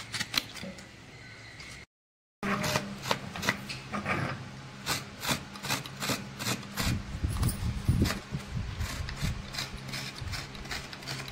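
Coconut half scraped by hand over a curved iron coconut-grating blade fixed to a wooden board: repeated rasping strokes, about two a second, as the white flesh is shaved off into flakes. The sound breaks off briefly about two seconds in.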